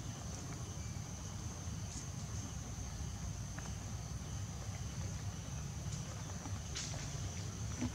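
Steady high-pitched drone of insects, with a low steady rumble underneath and a few faint clicks.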